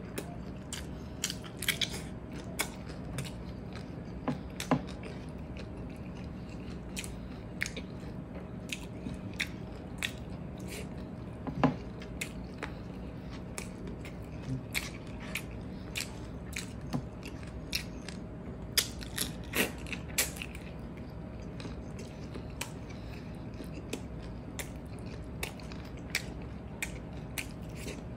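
Close-miked chewing and mouth sounds of a man eating salted egg shrimp and rice: many short, wet clicks and smacks at an irregular pace.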